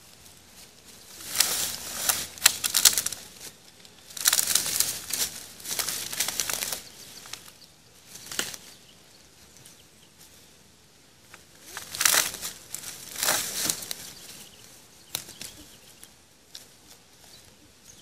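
Dry leaf litter crunching and rustling as people move through it, in three loud bursts of a second or two each with quieter rustling between.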